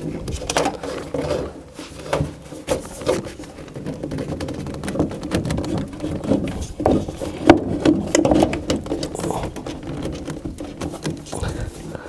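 Irregular knocks, clicks and rubbing from hands and tools working on a gas furnace's draft inducer assembly, with a sharper knock a little past the middle.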